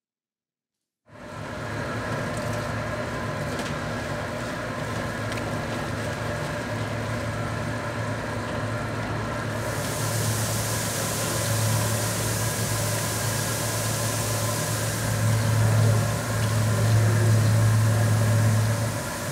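Steady machinery hum with a low drone and several fixed tones. From about ten seconds in, the hiss of tap water pouring into a stainless steel sink of raw chicken drumsticks being washed by hand is added.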